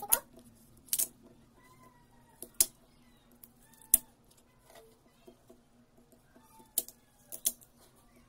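Kitchen knife cutting raw, peeled sweet potato into cubes on a cutting board: about half a dozen sharp knocks of the blade striking the board, irregularly spaced, with a longer pause in the middle.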